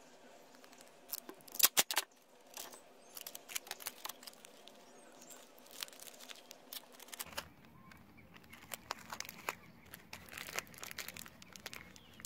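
Clear sticky tape pulled off the roll in a few loud rips about a second in, followed by crinkling of newspaper and tape as the wrapped pieces are pressed and handled.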